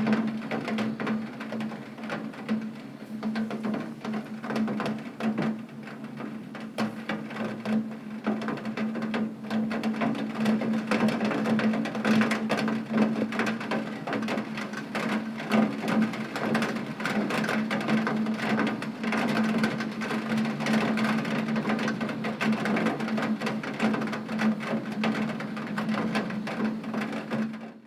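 Heavy rain on a window: a dense, continuous patter of drops hitting the glass, with a steady low hum beneath it. It cuts off abruptly at the very end.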